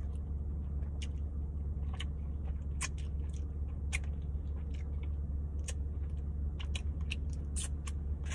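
A person chewing barbecue rib meat close to the microphone, with scattered wet mouth clicks and smacks over a steady low hum.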